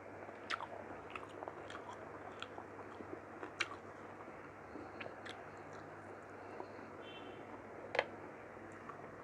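Close-up chewing of mutton curry with rice: a person's mouth works the food with scattered wet clicks and smacks. The sharpest clicks come about three and a half seconds in and again near the end.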